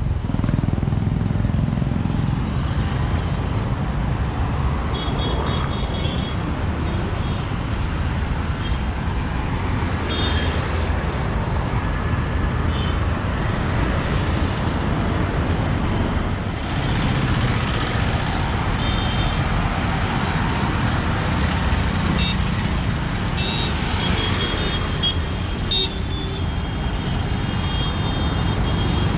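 Steady traffic on a busy city road as cars, motorbikes and auto-rickshaws drive past, with short high horn toots several times, most of them in the second half.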